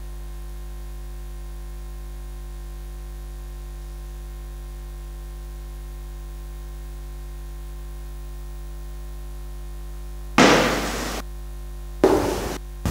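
Steady low hum in the room, then two sudden knocks or thumps near the end, the first stronger, each dying away within about a second.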